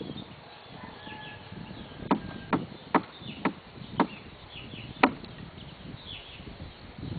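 Metal knife knocking against the wooden frame top bars of a beehive: six sharp knocks in about three seconds, the last one the loudest. Faint birds chirp in the background.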